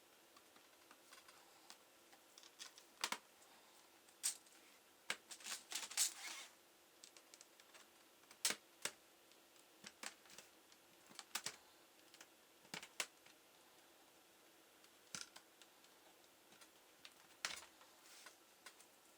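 Scattered light clicks and taps at irregular intervals, some in quick little clusters, from small laptop parts and tools being handled during disassembly.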